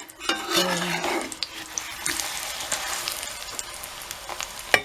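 Pancake batter sizzling in hot sunflower oil in a frying pan on high heat, a steady hiss with a few light clicks.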